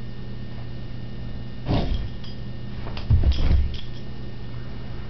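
Soft thumps and scuffles close to the microphone, once about two seconds in and again as a louder cluster around three seconds in, over a steady low hum.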